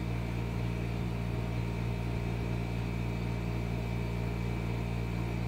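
A steady low mechanical hum that holds unchanged throughout.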